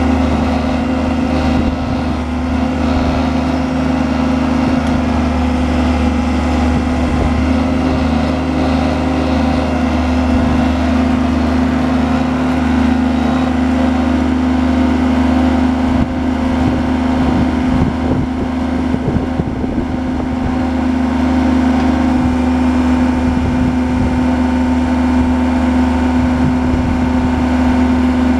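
Bomag 815-2 asphalt paver's diesel engine running steadily at a constant pitch.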